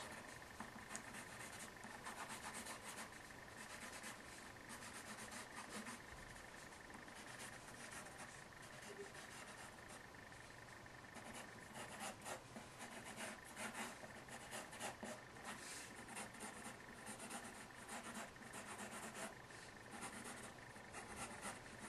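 Pencil scratching faintly on paper in short, irregular strokes.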